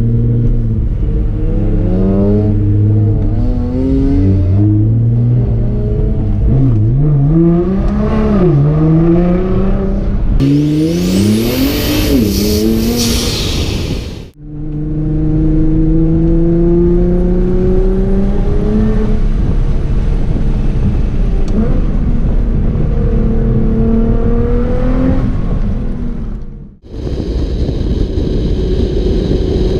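Nissan GT-R R35's twin-turbo V6 with a full HKS exhaust revving and accelerating, its pitch climbing and dropping through repeated shifts. A loud hiss joins for a few seconds near the middle, and the sound cuts off briefly twice.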